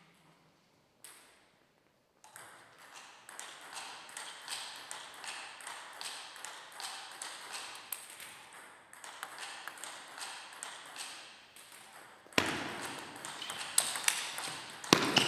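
Table tennis ball clicking: a run of light, quick ticks, then about twelve seconds in a rally starts, with louder, sharper strikes of ball on paddle and table.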